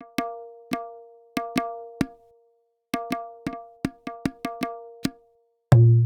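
Pitched percussion sound from the Korg Triton Extreme VST plugin, struck in two short phrases of hits at the same pitch, each ringing briefly, with a pause of about a second between them. Near the end a loud deep low tone comes in.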